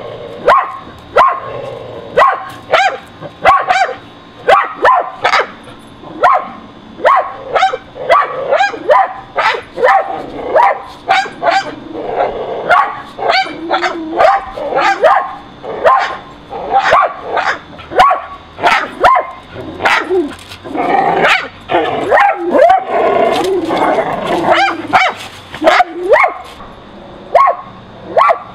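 Small terrier-type dogs barking at a squirrel on an overhead power line: short barks, one to two a second, which crowd together and overlap about twenty seconds in.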